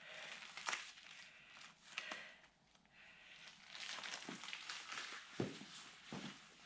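Crinkly rustling and handling noise with several light knocks; the sharpest knock comes about five and a half seconds in.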